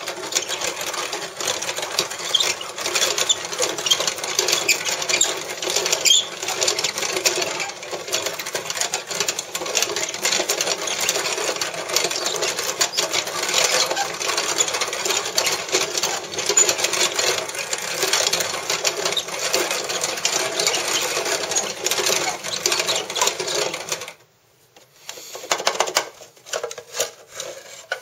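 Antique hand-cranked coffee grinder grinding coffee beans: steady crunching and rattling of the burrs as the crank turns. It stops abruptly about 24 seconds in, followed by a few short scrapes and knocks as the grounds drawer is slid out.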